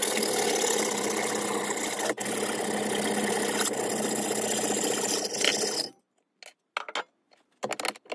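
Hand hacksaw cutting through a brass hinge clamped in a steel bench vise: a continuous metallic rasp with a brief break about two seconds in, stopping about six seconds in. A few light clicks and taps follow as the cut brass piece is handled in the vise jaws.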